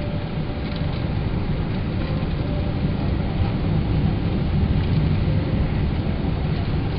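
Steady low rumble of a Boeing 777's jet engines and airflow heard inside the cabin, swelling slightly about halfway through.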